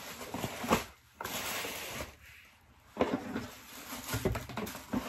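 Rustling of packing paper and a cardboard shoebox being handled, then a few light knocks as the box is moved.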